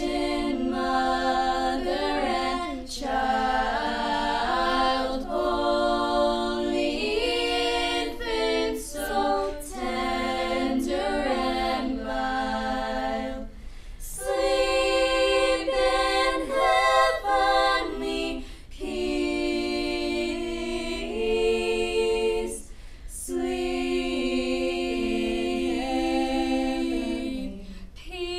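A choir singing a cappella, several voice parts in close harmony, with short breaths between phrases.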